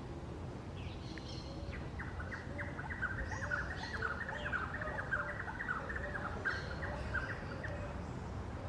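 Forest bird song: a fast chattering run of short notes that starts about two seconds in and stops near the end, with scattered higher chirps from other birds.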